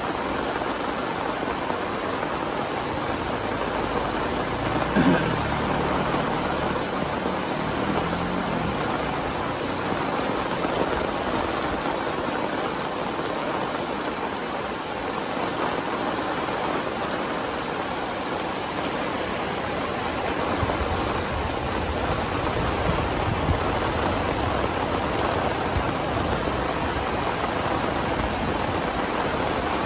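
Heavy tropical rain pouring steadily, a dense even hiss of downpour. About five seconds in there is one brief louder sound.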